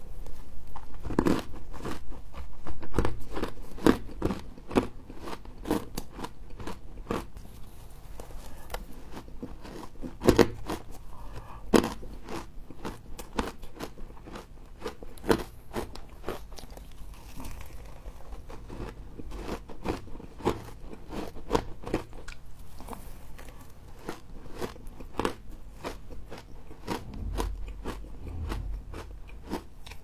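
Humidifier frost being crunched and chewed close to the microphone: a dense run of crisp crackles, thickest at first and thinning out, with a few sharper, louder crunches near the middle.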